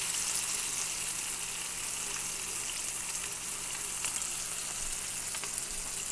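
Flour-dredged trout sizzling steadily as they shallow-fry in hot oil in a skillet, with a couple of faint clicks from a fork moving the fish in the pan.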